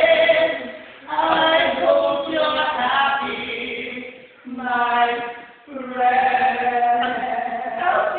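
Voices singing long held notes without clear words, in four phrases of about one to three seconds each with short breaks between.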